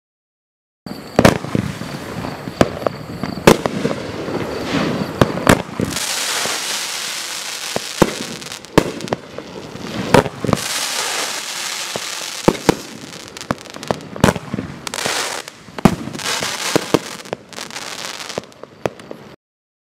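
A 500-gram consumer fireworks cake (T-Sky 'Stay Loaded', 17 shots) firing in quick succession from about a second in. It gives an irregular string of sharp bangs from launches and aerial breaks, with stretches of hiss between them.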